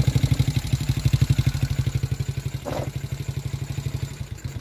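Small single-cylinder engine of a 49cc Chinese kids' ATV idling with a rapid, even putter, running on choke after starting on its new starter solenoid. The beat eases and gets quieter in the second half.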